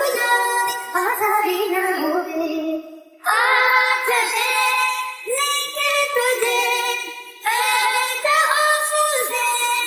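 Sped-up isolated vocal track with no instruments: singing raised in pitch, in long, wavering sustained lines, with short pauses about three seconds in and again past seven seconds.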